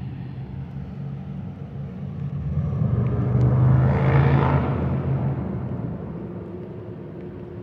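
Diesel freight train running off toward the junction, a steady low engine drone. A rushing hiss swells and fades about three to five seconds in.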